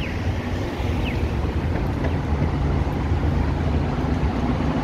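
Street traffic passing on a city avenue: steady road noise with a low engine rumble, with wind buffeting the phone's microphone.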